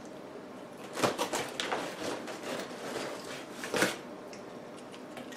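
Crinkling and rustling of a plastic tortilla chip bag being handled: a run of crackles for about three seconds, with a sharper crackle at the start and another near the end.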